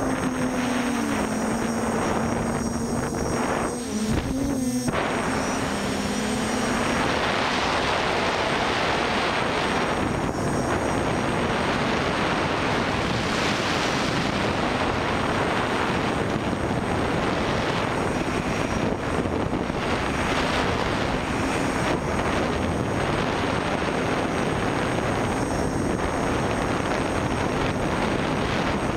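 Armattan FPV Rev2 Tilt quadcopter's Tiger MT2216 brushless motors and 9x5 propellers whining in flight, heard from the camera on board. A steady pitched whine for the first five seconds, wavering around four seconds in, then gives way to a mostly even rushing noise.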